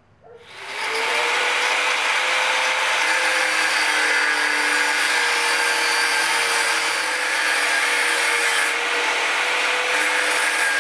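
Angle grinder spinning up about half a second in, then running steadily with its disc grinding against the bicycle frame's metal tube, sending off sparks: a loud grinding noise over a steady whine.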